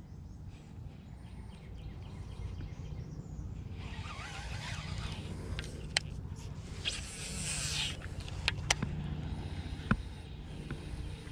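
Steady low rumble of wind on the microphone, with a few sharp clicks and two short hissing stretches from a baitcasting rod and reel being handled and cast.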